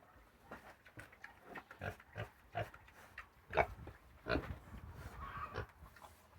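Pigs grunting in short, irregular grunts, with two louder grunts a little past the middle.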